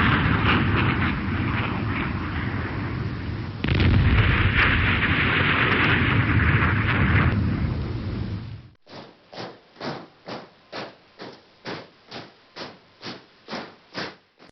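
Explosion sound effects: a sustained, noisy blast roar, then a second blast starting about four seconds in that rolls on and dies away at about eight seconds. Then comes a steady run of about a dozen short, even thuds, two or three a second.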